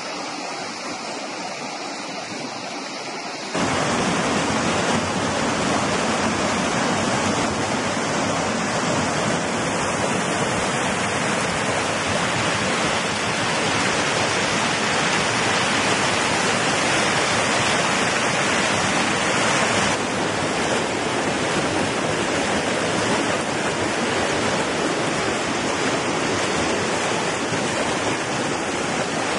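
Mountain stream rushing and splashing over rocks in small cascades, a steady white-water rush. About three and a half seconds in it jumps louder and fuller as the sound comes from closer to the rapids.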